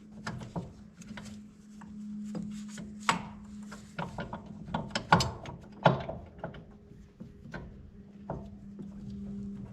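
Irregular metallic clinks and knocks of hand tools working on a corn planter's wheel hub and bearing, over a steady low hum.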